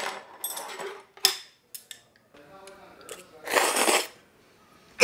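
Metal chopsticks clicking against a ceramic noodle bowl, a sharp clink about a second in. Then a noisy slurp of noodle soup, about half a second long, at three and a half seconds.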